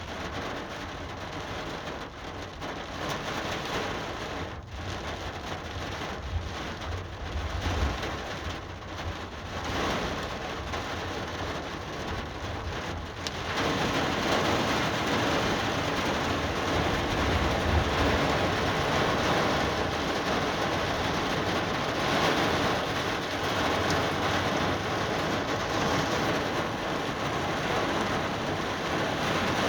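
Rain and wind of a thunderstorm, a steady hiss that turns suddenly heavier and louder about halfway through as the downpour sets in.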